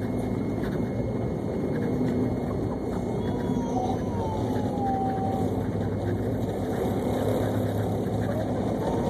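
Airliner cabin noise while taxiing: a steady low drone of the aircraft's engines. About three seconds in, a faint thin tone glides up and down for a couple of seconds.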